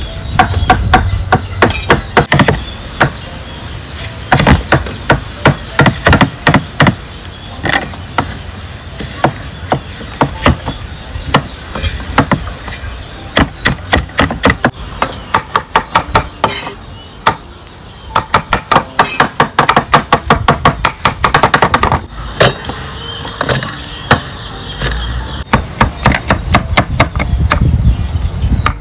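Knife chopping food on a cutting board: a long series of sharp, loud hits, sometimes spaced out and sometimes in quick runs of several strokes a second.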